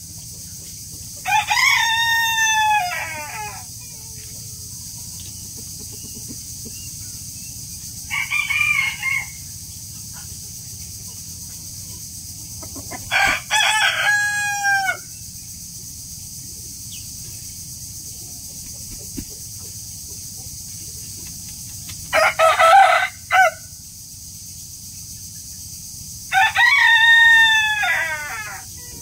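A rooster crowing five times, each crow a drawn-out cock-a-doodle-doo of one to two seconds, with several seconds of pause between crows.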